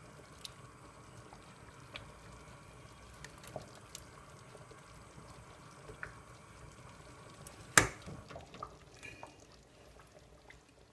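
Beef curry being ladled over rice on a plate: soft wet scooping and pouring with a few light clinks, and one sharp clink about eight seconds in.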